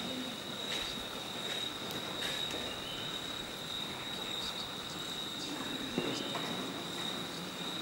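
Insects trilling in a steady, unbroken high-pitched tone, with faint scattered clicks and one sharper click about six seconds in.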